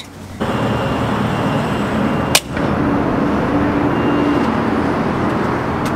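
Gas pump dispensing fuel into a pickup's tank: a steady rushing hiss with a faint low hum, broken by a short click and dropout about two and a half seconds in.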